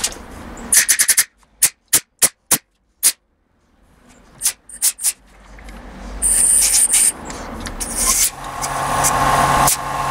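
Air blow gun on a small compressor giving short hissing blasts of compressed air into the bores of a motorcycle carburettor bank, with several sharp clicks in between. About eight seconds in, the mini air compressor's motor starts and runs with a steady hum.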